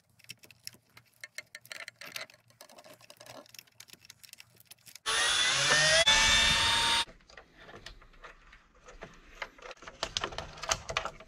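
Milwaukee M12 Fuel cordless screwdriver running for about two seconds on a screw, its motor whine rising in pitch, with a brief dip midway. Before and after it come faint clicks and rattles of plastic parts and wire connectors being handled.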